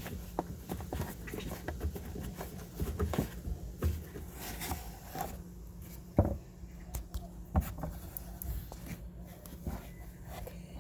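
Irregular clicks and knocks of hands working the plastic taillight fasteners and housing of a 2011 Dodge Challenger, over a steady low hum; a sharper knock comes about six seconds in.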